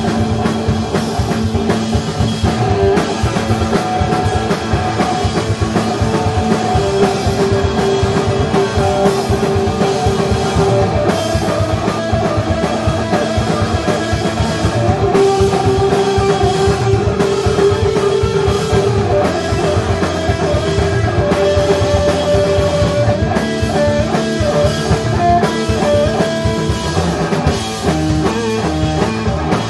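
Live rock band playing an instrumental passage: electric guitar holding long sustained notes over a busy drum kit.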